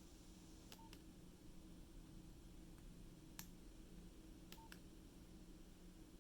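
Near silence, broken by a few faint clicks and two very short beeps from a Nokia 6030 mobile phone's keypad as keys are pressed.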